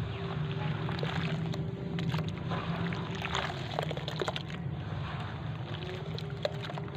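Hands squeezing and crumbling wet sand-cement clumps in a plastic basin of water: wet squelching and sloshing with many small gritty crackles, over a steady low rumble.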